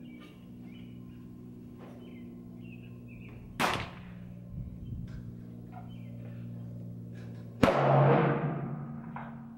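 Two shots from a 7.62x39 AR-style pistol with a 7.5-inch Bear Creek Arsenal upper, fired about four seconds apart, over a steady low hum. The second shot is the louder and rings on for over a second.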